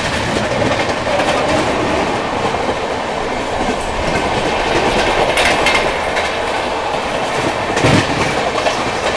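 Passenger trains running at speed on parallel tracks, heard from aboard one of them: a steady rumble of steel wheels on rail, with clickety-clack over the rail joints and a few sharp clacks in the second half.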